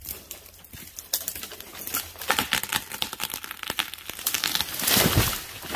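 Irregular rustling and crackling with scattered sharp clicks, building to the loudest rustle about five seconds in.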